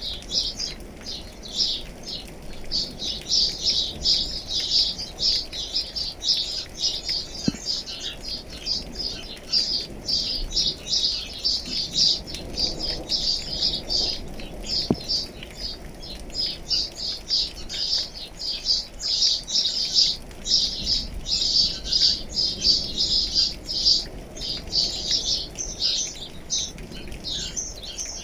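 Many small birds chirping and chattering in a dense, continuous chorus of rapid high notes, over a faint steady hiss of rain.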